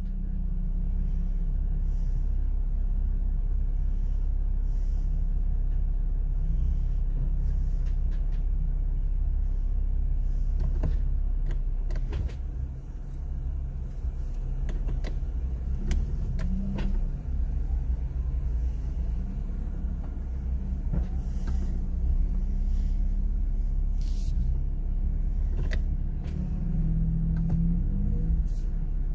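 Jeep Wrangler JL engine running at low revs, heard from inside the cabin: a steady low rumble with brief rises in revs, and scattered clicks and knocks.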